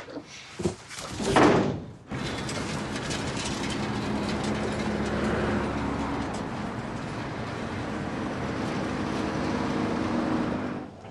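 A few clicks and a door shutting in the first two seconds, then a vehicle running steadily with a low hum until near the end.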